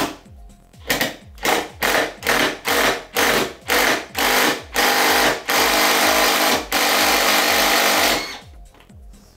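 Cordless impact driver hammering on a very tight bolt of a power-wheelchair wheel rim, loud: a run of short trigger bursts, each longer than the last, then a continuous run of about three seconds with one short break, stopping near the end.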